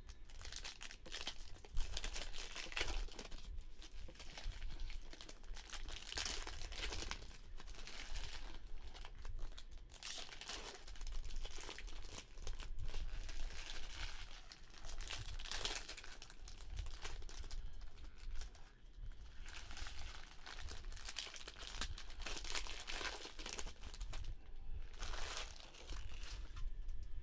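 Foil trading-card pack wrappers crinkling and tearing on and off as packs are opened by hand and the cards handled.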